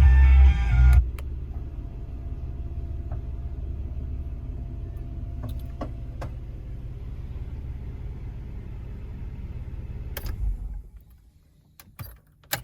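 Car stereo music cuts off abruptly about a second in, leaving the steady low rumble of the 1988 Nissan 300ZX Turbo's 3.0 L turbocharged V6 idling, with a few light clicks of controls. Near the end there is a thump and the engine stops, followed by a couple of clicks.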